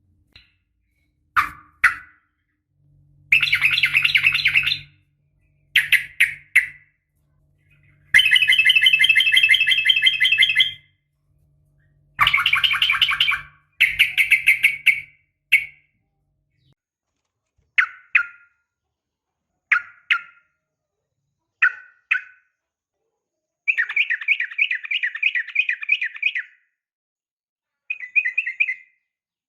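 Yellow-vented bulbul (trucukan) calling, presented as a female's fighting and mate-calling call: repeated bursts of rapid, bubbling chattering notes, some short, some about two seconds long, with short silent gaps between.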